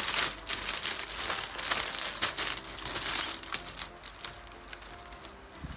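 Clear plastic packaging crinkling and rustling as it is handled and pulled off a folded makeup cape. The crackling is busiest over the first three seconds or so, then dies down to light rustling.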